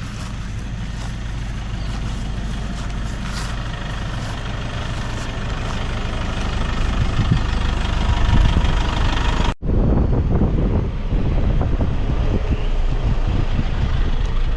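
An engine running steadily, growing louder over the first several seconds; the sound breaks off for an instant about ten seconds in and carries straight on.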